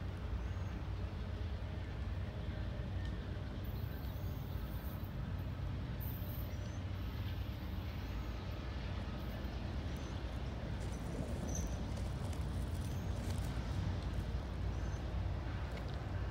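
Low, steady rumble of a CSX freight train's diesel locomotives approaching at a crawl, growing slightly louder in the second half. Faint bird chirps sound now and then above it.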